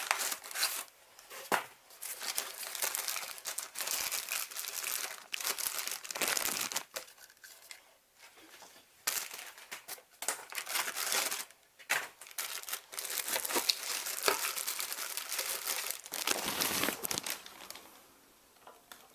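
Packaging rustling as the vacuum cleaner's parts and manual are taken out of the box, on and off, with a quieter stretch around seven to nine seconds in and dying down near the end.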